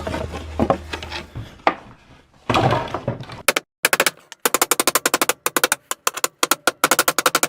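Hammer striking nails to knock them out of pallet boards: a fast run of sharp blows, about six a second, starting a little past halfway.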